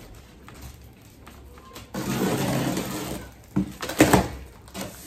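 Packing tape on a large cardboard box being slit open with a knife, a scraping noise of about a second and a half, then the cardboard flaps pulled open with a few sharp snaps and knocks.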